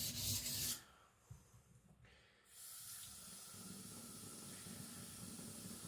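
A steel knife blade being stroked back and forth on a whetstone, a rhythmic scraping of about four strokes a second that stops under a second in. After a quiet pause, a steady hiss of running water starts and holds, like a tap left on.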